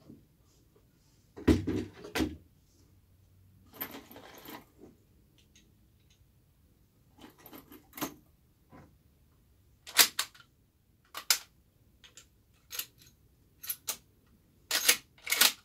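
Lever-action rifles being handled on a shooting bench: a scatter of separate clicks and knocks of wood and metal, with a heavier thump about a second and a half in and sharp clicks later on.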